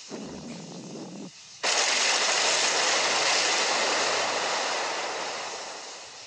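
Cartoon water sound effects: a pipe under a sink hissing as it leaks, then about a second and a half in a sudden loud rush of gushing water as it bursts and floods the room, fading slowly away.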